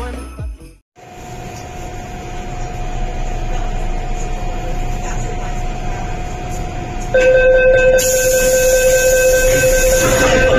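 MTR M-Train standing at the platform with its doors open, its equipment giving a steady hum. About seven seconds in, the door-closing warning starts, a steady high tone held for about three seconds as the doors close.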